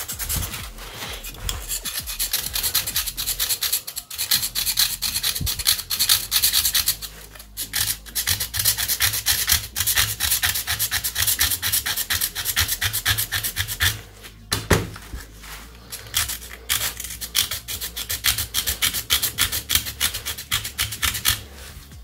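Small screwdriver tip scraping hardened, kiln-fired microwave-absorbing paint on the inside of a terracotta clay pot shard, in rapid rough strokes with a brief lull about fourteen seconds in. The high-temperature-fired paint is very tough and scarcely comes off.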